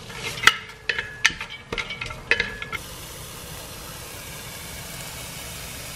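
A few sharp clinks and taps, then, from about three seconds in, a steady sizzle of diced onion and carrot frying in olive oil in an enamelled pot.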